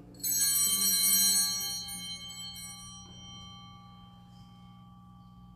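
Altar bell rung at the elevation of the chalice after the words of consecration. It starts suddenly about a quarter second in and rings on with several clear high tones that fade away over the next few seconds.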